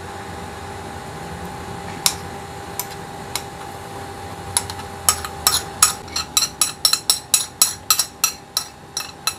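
Metal spoon scraping and tapping against a ceramic plate, knocking mashed fruit pulp off into a plastic jug: a few separate clicks at first, then a quick run of sharp ticks, about four a second, through the second half. A steady hum from a kitchen appliance runs underneath.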